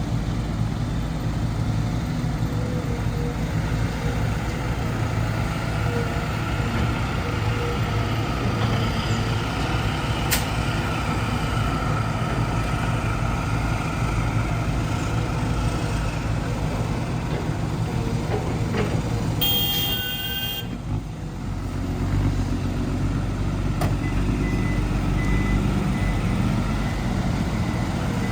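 Dump truck's diesel engine running steadily under load. About twenty seconds in, a short high, multi-toned sound lasts about a second while the engine briefly eases off.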